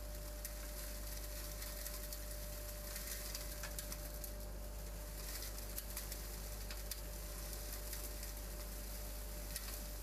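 Vacuum with a wide corrugated hose running steadily, a constant hum and whine under a hiss, with scattered faint crackles as hay and grit rattle up the hose.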